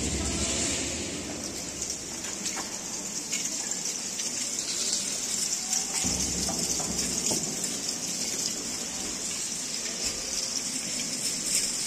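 Steady rain falling, with a low roll of thunder dying away over the first couple of seconds.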